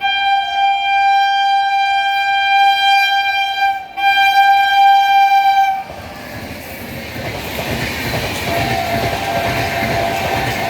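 WAP-7 electric locomotive's horn sounding loud and steady, broken once briefly about four seconds in, then stopping about six seconds in. After that comes the steady noise of the train running past.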